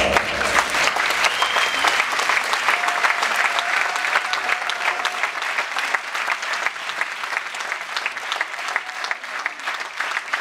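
Audience applauding, many hands clapping, slowly getting quieter toward the end.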